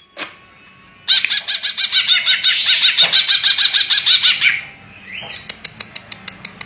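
Cucak ijo (green leafbird) singing a fast run of rapidly repeated rising-and-falling notes for about three and a half seconds, followed near the end by a quick series of sharp clicks.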